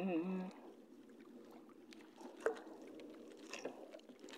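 A man's sung held note with a wavering pitch trails off half a second in. Then it is quiet, with faint water sounds around a small boat and a few light knocks, the clearest about two and a half seconds in.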